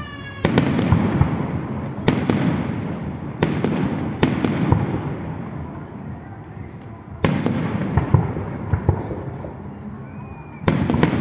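Aerial firework shells bursting overhead: about six loud bangs spread over the stretch, each trailing off in a rolling rumble.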